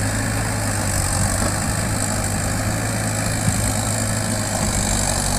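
Engine of a loaded light dump truck running steadily as it drives slowly, a constant low drone.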